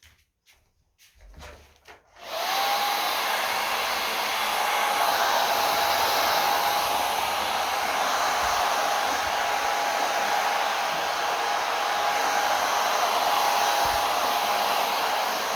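Hair dryer switched on about two seconds in, after a few faint clicks, then running steadily: a rush of air with a thin whine on top that climbs briefly as it spins up and then holds level.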